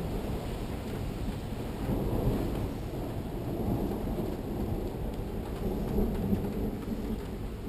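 Thunder rumbling low and continuously, rising and falling without a sharp crack, with rain falling.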